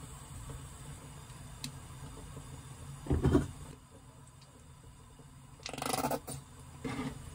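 Plastic squeeze bottles of ketchup and mustard squirting sauce, with a loud short squirt about three seconds in and two more near the end, over a low steady background hum.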